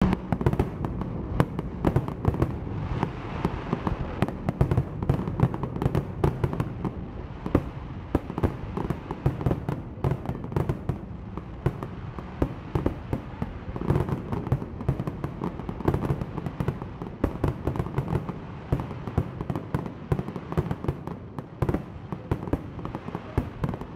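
Fireworks display: a rapid, unbroken barrage of aerial shell bursts, many sharp bangs and crackles a second over a steady low rumble.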